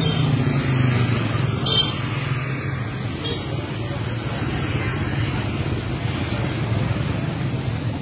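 Steady street traffic noise from passing vehicles, with a short click about two seconds in.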